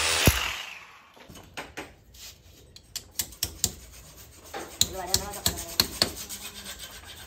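A power tool stops at the start and runs down within about a second. Then come irregular sharp clicks and knocks with rubbing and scraping, from plastic pipe work being handled and filed.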